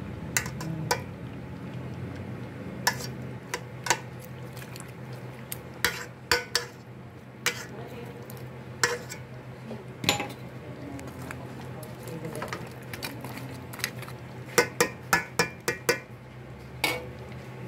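A metal cooking utensil knocking and scraping against a pot while a thick stew of chicken, carrots and potatoes is stirred. The knocks are scattered, with a quick run of about six near the end, over a steady low hum.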